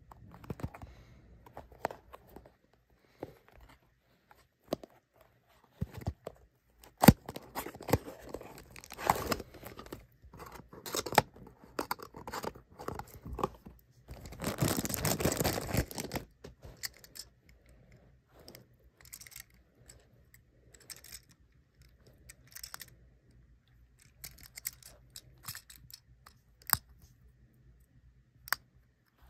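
Unboxing a small die-cast toy car by hand: cardboard box rustling and sharp clicks. About halfway through comes a couple of seconds of clear plastic bag crinkling and tearing, then scattered small clicks and taps as the toy is handled.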